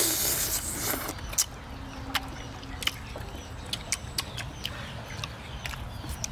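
Grilled snail meat being sucked out of its shell with a loud slurp in the first second, followed by scattered sharp clicks of eating.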